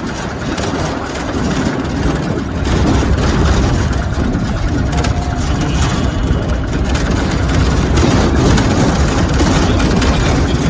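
Mahindra Jeeto mini truck driving over a rough gravel dirt track, heard from inside the cab: the engine running with road noise, rattles and bumps. It gets louder about two seconds in.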